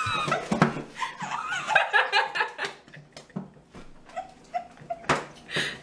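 Two women laughing in short bursts, one muffling her laughter behind her hand over her mouth.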